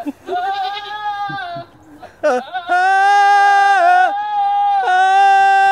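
Buck goat calling in three long, drawn-out bleats. Each is held steady with a slight waver, and the third is still going at the end. These are the courting calls of a buck flirting with a doe.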